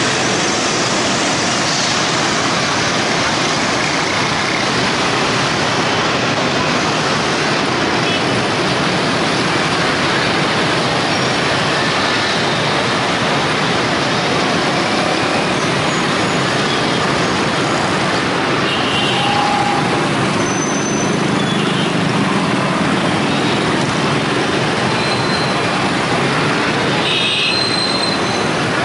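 Heavy motorbike traffic, dozens of motor scooters mixed with cars and buses, gives a steady, loud wash of small engines and tyre noise. A few short horn beeps sound now and then, the clearest near the end.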